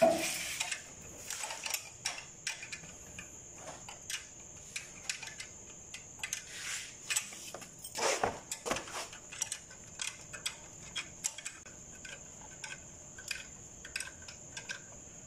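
Scattered metallic clicks and clinks of hand tools and bolts on the injection pump drive gear and timing-gear housing of a Mitsubishi 4D32 diesel as the pump is fastened. A louder knock comes about eight seconds in.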